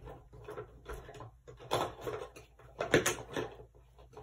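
Rummaging through desk supplies in search of a small tool: irregular rustles, clatters and knocks of objects being moved, with a sharper knock about three seconds in.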